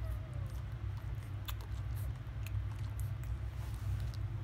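Newborn Labrador Retriever puppies suckling at their mother, with scattered wet smacking clicks over a steady low rumble. A short falling puppy whimper sounds right at the start.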